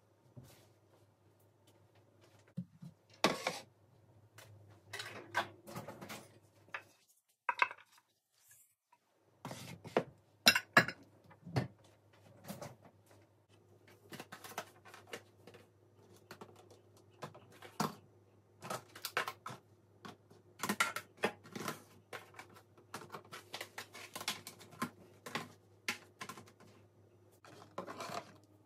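Dishes and cutlery being handled and put away: irregular clinks, clatters and knocks of crockery and silverware, over a steady low hum.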